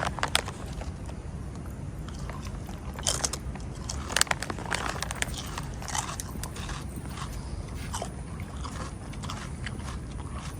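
Scattered, irregular clicks and scrapes of close handling noise over a steady low rumble.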